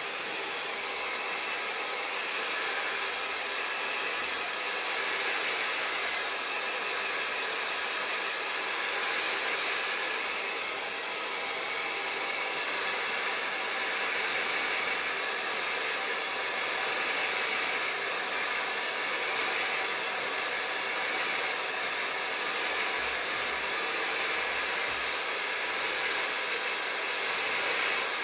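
Remington Copper Radiance hairdryer running steadily, a continuous rush of blown air with a faint high whine from its motor.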